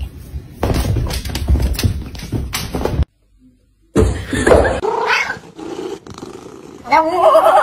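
Domestic cats meowing: a drawn-out meow that rises in pitch about four seconds in, and another meow near the end. Before them come a few seconds of crackly noise, then a second of silence.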